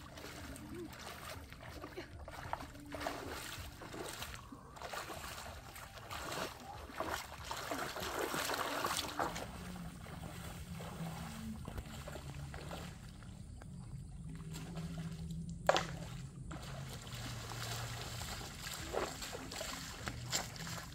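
Bare feet wading through a shallow stony stream, the steps splashing and sloshing irregularly in the water.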